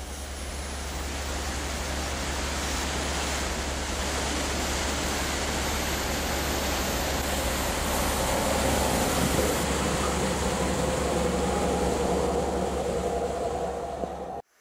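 Snowplow locomotive ploughing through deep snow: a steady rushing hiss of flung snow over the low drone of the diesel engine, with an engine tone coming through in the second half. It grows louder as the snow cloud sweeps over, then cuts off suddenly near the end.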